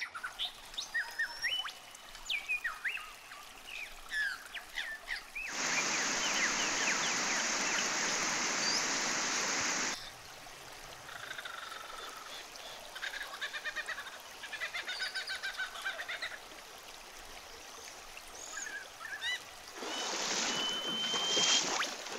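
Birds chirping along a bush river, with rushing, splashing water loud from about five to ten seconds in, starting and stopping abruptly. Near the end, water splashing again as of wading through the river.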